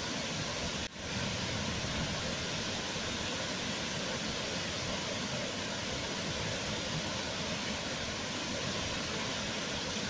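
Wide waterfall pouring over a rock ledge into a pool: steady rushing water. The sound drops out for an instant about a second in.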